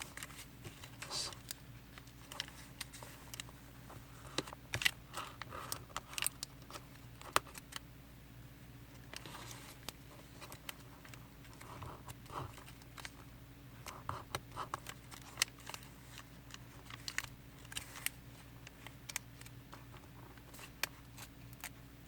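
Sheet of origami paper being folded and creased by hand: irregular crisp clicks and short papery rustles as the folds are pressed flat, over a faint steady hum.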